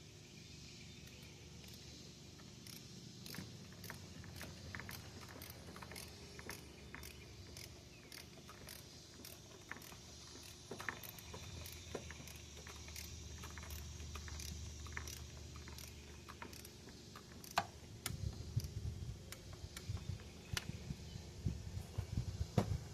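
Faint ratcheting of a torque wrench, a run of light clicks, as intake manifold bolts are run down in torque sequence. There are metallic tool clinks throughout, and louder knocks and handling thuds in the last few seconds.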